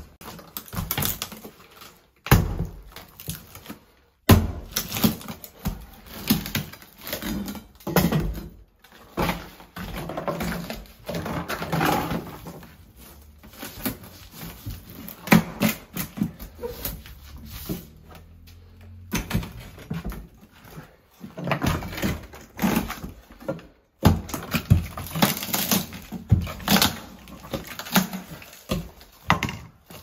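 Broken concrete rubble being scooped and scraped up off a wooden subfloor and dropped into a bucket: irregular clattering knocks of concrete chunks and scraping, with no steady machine running.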